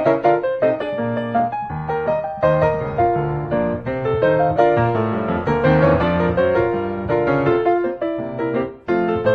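Background music: a piano playing a melody note after note, with a brief break near the end.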